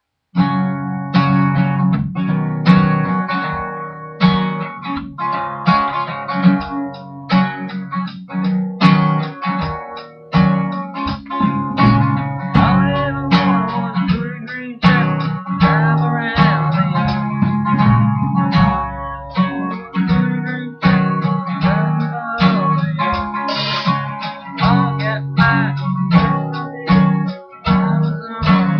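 1960s Gibson Dove acoustic guitar playing a country tune, played in a steady strummed rhythm with picked notes.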